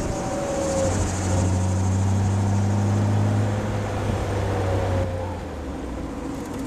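1964 Ford Thunderbird's V8 engine running as the car drives along, heard from inside the cabin over steady wind and road noise. The engine's low drone grows louder about a second in, holds steady, and drops away around five seconds in.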